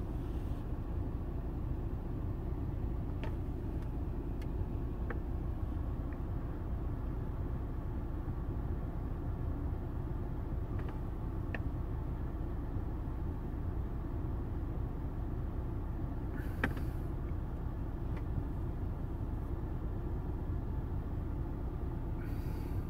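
Steady low rumble of a car's interior, with a few faint clicks from fingers tapping the dashboard touchscreen; the loudest click comes about sixteen seconds in.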